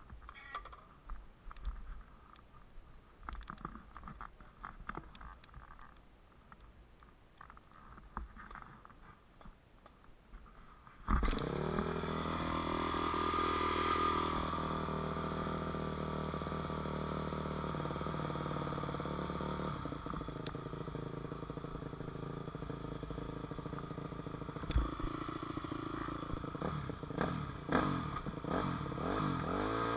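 2006 Yamaha 250F dirt bike's single-cylinder four-stroke engine: a stretch of faint scrapes and clicks, then about eleven seconds in the engine fires abruptly and runs at a steady idle, with brief throttle blips rising and falling, several of them near the end.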